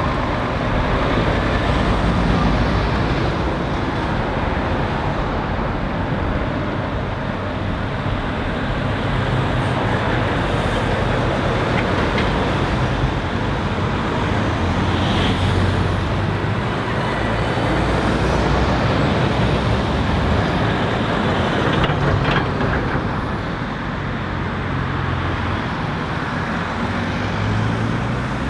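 Road traffic: heavy lorries' diesel engines and cars passing, a continuous rumble whose low engine notes swell and fade as vehicles come and go.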